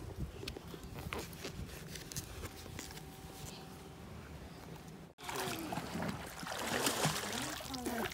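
A faint low rumble with scattered clicks. About five seconds in, the sound breaks off abruptly and gives way to louder water splashing with voices.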